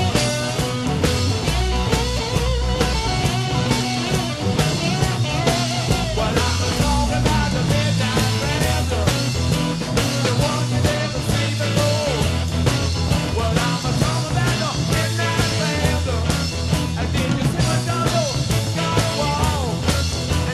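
Rock music with a steady drum beat and a driving bass line.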